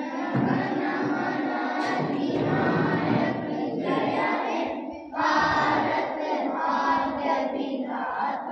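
A group of schoolchildren singing together in unison, in phrases with short pauses about four and five seconds in.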